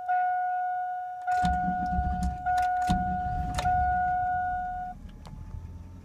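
A dashboard warning chime sounds in repeated tones while the 5.3-litre V8 of a 1999 GMC Sierra cranks over, about a second in. The engine catches and settles into a steady idle, and the chime stops near the end. The owner believes the engine has a dead lifter.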